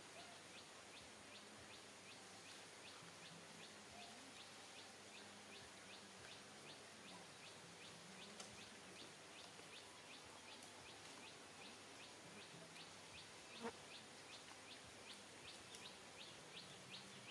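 Faint, steady chirping from a small animal, short high chirps repeating about three times a second over a soft outdoor hiss. About two-thirds of the way through comes a single sharp click.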